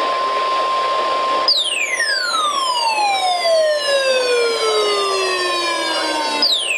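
The NOAA Weather Radio warning alarm tone, a steady 1050 Hz tone, sounds during a weekly tone alarm test. About a second and a half in, a weather radio receiver's alarm sets off over it: a siren-like sweep falling from high to low over about five seconds, starting again near the end.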